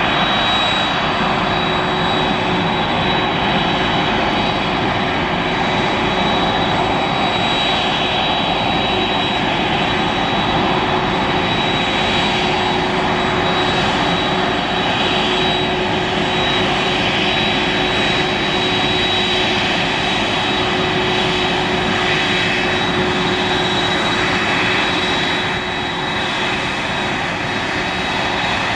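Boeing 747-400ERF's four turbofan jet engines running at low taxi thrust: a steady roar with a high, held whine over it. The level dips slightly near the end.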